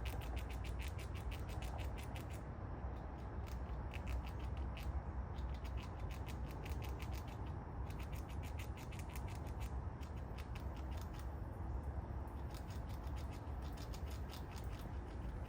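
A squirrel gnawing and chewing food: bursts of rapid, evenly spaced clicking several times a second, stopping and starting a few times, over a steady low outdoor rumble.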